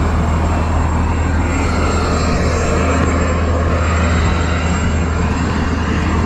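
Steady low drone of an idling truck engine, with road noise from the highway mixed in.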